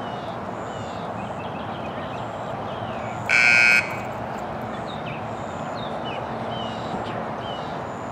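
An arena start buzzer sounds once for about half a second, about three seconds in: the signal for the rider to begin the show-jumping round. Behind it, a steady outdoor background with faint chirps.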